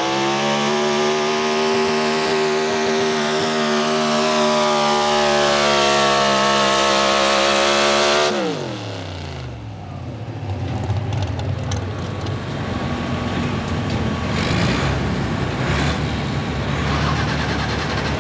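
Pro stock 4x4 pulling truck's big-block V8, carbureted through a single four-barrel, held at high, steady revs under full load while dragging the sled. About eight seconds in the revs fall away sharply as the pull ends, and the engine settles into a low, steady idle.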